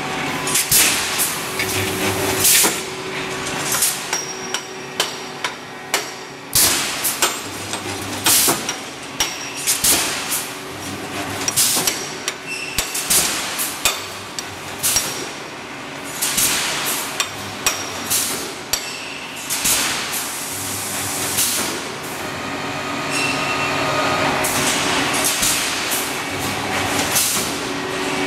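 Automatic rebar mesh welding machine running: a stream of sharp metallic clanks, roughly one or two a second, over a steady machine hum.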